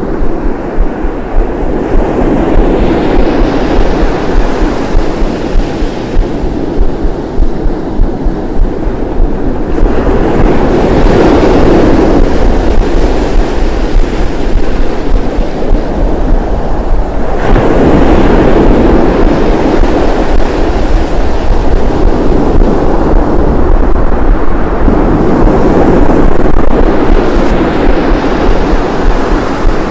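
Ocean surf: waves breaking and washing up a beach in a steady rush that swells and eases every several seconds.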